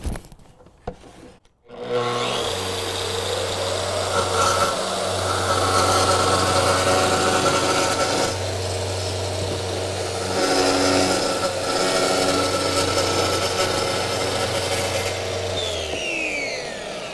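Makita plunge track saw with a Diablo fiber-cement blade cutting through Hardie concrete panel, with a Festool CT26E HEPA dust extractor running alongside and switched on by the saw. Both start about two seconds in and run steadily through the cut; near the end the saw switches off and winds down with a falling whine.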